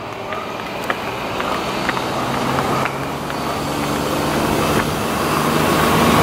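An SUV approaching along a paved road, its engine hum and tyre noise growing steadily louder.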